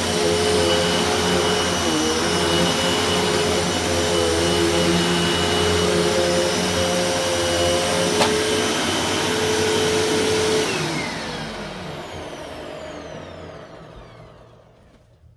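Hoover WindTunnel Tempo bagged upright vacuum cleaner running steadily with a high whine over its fan, a sharp click about eight seconds in. From about eleven seconds the motor spins down after being switched off, its pitch falling as it fades to quiet.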